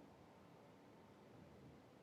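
Near silence: faint steady room tone and hiss, with no keystrokes.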